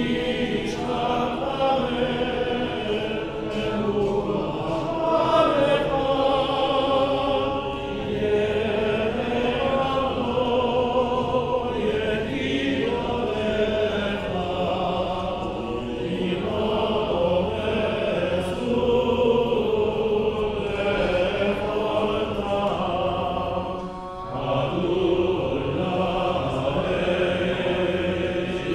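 Cantor and male choir singing Jewish liturgical chant in sustained, flowing phrases, with a brief pause near the end.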